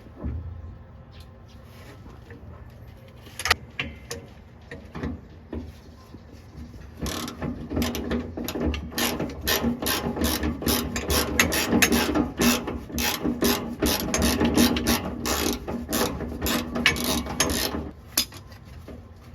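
Hand ratchet wrench clicking as it backs out a fuel-tank bracket bolt: a few scattered clicks at first, then about ten seconds of fast, steady ratcheting that stops shortly before the end.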